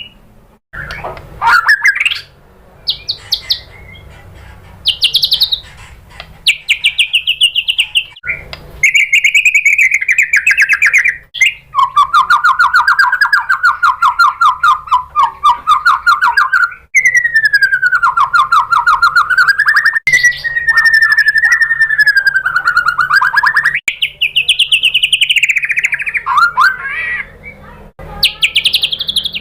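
White-rumped shama singing: a few short chirping phrases, then long trills of very fast repeated notes that slide up and down in pitch, with a brief break about halfway through.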